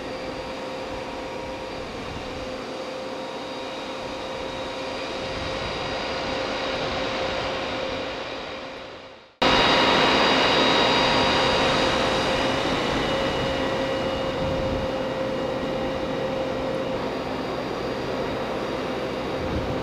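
Boom truck crane's engine running steadily with a constant whine over it. The sound fades away about nine seconds in, then cuts back in louder.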